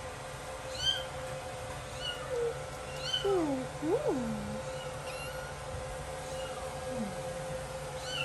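Ragdoll cat meowing over and over: short high-pitched mews about once a second, with a lower, longer meow that rises and falls about four seconds in. It is crying to be picked back up.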